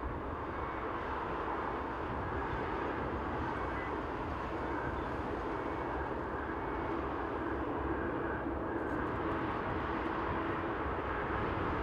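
Airbus A380-841's four Rolls-Royce Trent 970 jet engines at taxi power, a steady rush with a faint hum, as the airliner turns onto the runway.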